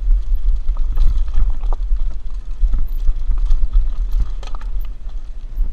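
Wind rumbling over a helmet-mounted action camera during a mountain bike descent, with irregular clattering and knocks from the bike rattling over rough trail.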